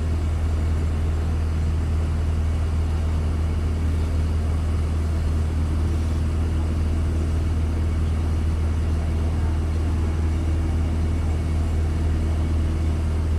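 An engine running steadily, a low, unbroken hum.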